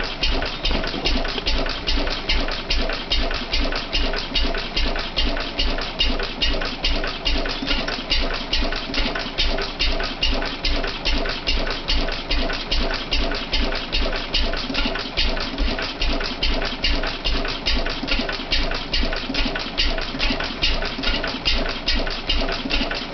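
Crossley 1065 open-crank, hopper-cooled stationary engine, fitted with a new push rod, running steadily in an even beat with a fast clicking over it.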